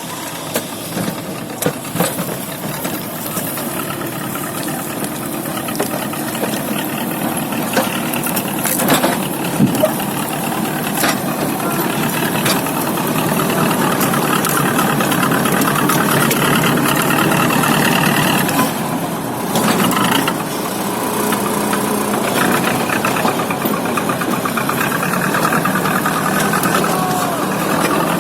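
Logging machine's engine running steadily and working harder from about 12 s on, with several sharp knocks or cracks over it.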